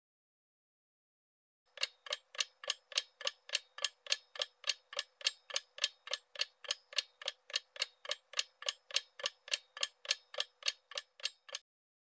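Ticking-clock sound effect of a quiz countdown timer: fast, even ticks, about four to five a second, starting about two seconds in and stopping shortly before the end.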